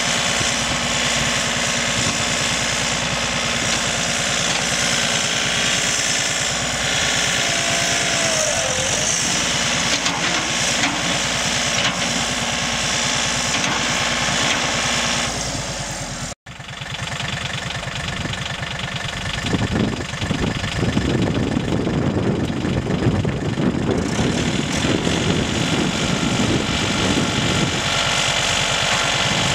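John Deere 3520 compact tractor's three-cylinder diesel engine running with a steady low throb. It breaks off suddenly about halfway through, then comes back working harder for several seconds as the loader is worked to free the stuck tractor.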